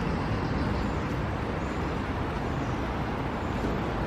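Steady road-vehicle noise: an even, unbroken noise with no distinct events.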